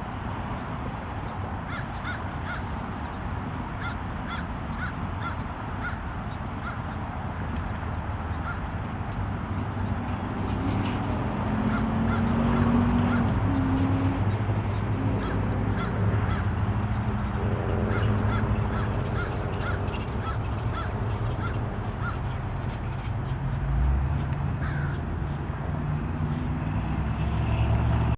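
Crows cawing in quick runs of short calls, about three a second, over a steady low hum that grows louder about a third of the way through.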